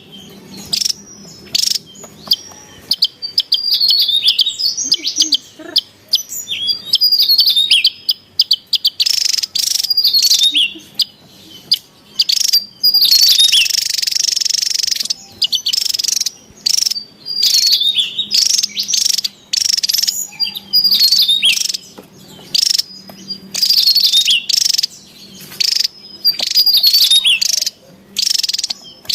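Javan tesia singing: loud, rapid bursts of high twittering notes that slide downward, repeated every second or so, with insects chirring faintly underneath.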